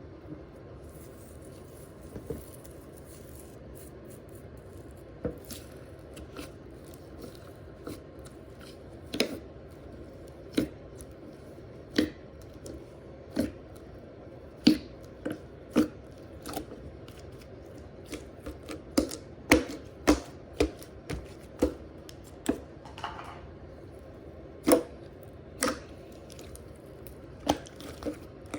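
Slime being pressed and squeezed by hand, giving sharp clicking pops at irregular intervals, sparse at first and coming more often in the second half.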